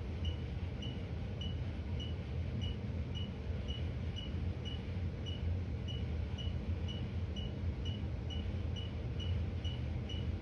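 Steady low hum of room noise, with a faint, high-pitched tick or beep repeating evenly about twice a second.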